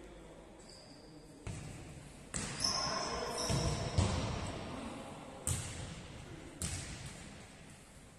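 A ball hitting the floor of an indoor sports court, four separate hits over several seconds, each echoing in the large hall. There is a short high squeak near the middle.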